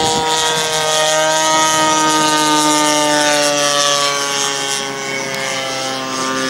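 40cc DLE twin-cylinder two-stroke gas engine of a large RC model plane running in flight overhead, its propeller buzz sliding slowly down in pitch as the plane passes.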